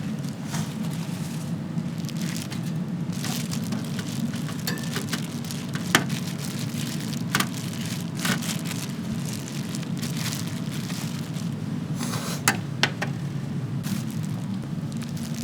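Chicken sizzling and crackling as it cooks over charcoal, over a steady low hum, with a few sharp knocks: one about six seconds in and two close together near the end.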